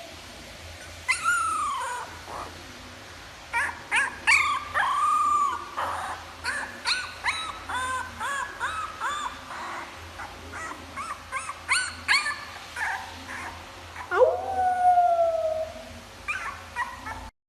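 A dog howling, then a quick run of short yips and whines, about two a second, then another long howl near the end.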